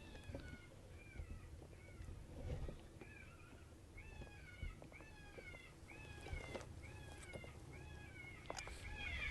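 Predator call playing a series of short, pitched distress cries, each falling in pitch, repeating a little faster than once a second with a brief pause about three seconds in. The cries are faint.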